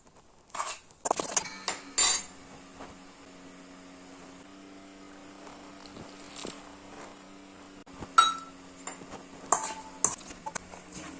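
Kitchen utensils clinking and knocking against dishes in scattered strokes, a cluster near the start and another near the end, over a steady low hum.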